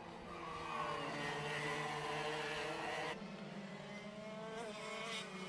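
Racing karts' 125cc engines running on track at high revs, several engine notes layered together, their pitch wavering slightly. The level dips about three seconds in.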